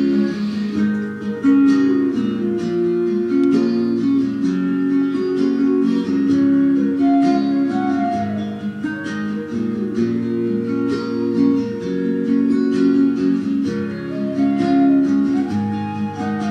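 Music: plucked acoustic guitar, a run of picked notes and chords.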